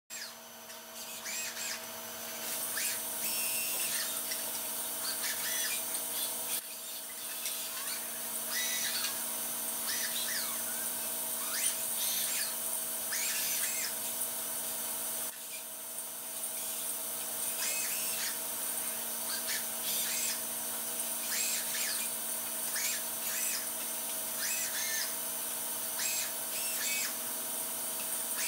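Running machinery of a robotic work cell: a steady hum made of several tones under a high hiss, with short high-pitched whines coming about once a second. The background changes abruptly twice.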